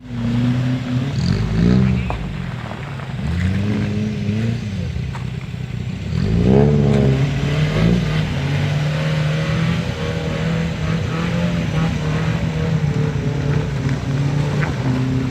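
Off-road 4x4 vehicle's engine revving up and dropping back a few times, then running at a steady speed through the second half.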